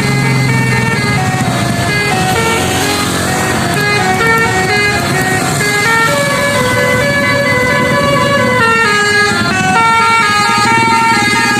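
Telolet basuri multi-trumpet horn set playing a tune: loud, steady horn notes that step from pitch to pitch, several sounding together.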